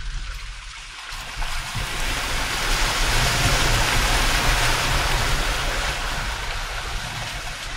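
Dacia Duster SUV driving over a rough off-road track: a low running rumble under a rushing noise that swells over a few seconds and then fades.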